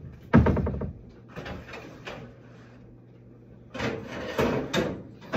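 Kitchen cabinet and cookware being handled while a pan is fetched: a heavy knock just after the start, some lighter clatter, then a longer spell of clattering and knocking about two-thirds of the way through.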